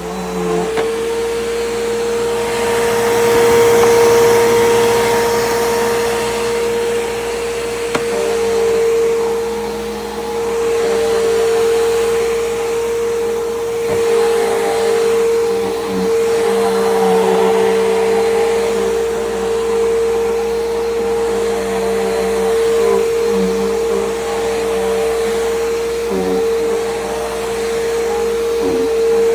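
Bissell PowerGroom bagless upright vacuum cleaner running continuously, a steady motor whine over a rushing hiss, its loudness rising and falling slightly as it is pushed back and forth.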